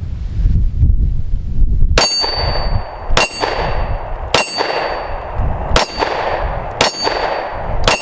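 Smith & Wesson M&P Shield Gen 1 9mm pistol fired about once a second, five shots and a sixth at the very end, starting about two seconds in. Each shot is followed by the ringing clang of a struck steel target.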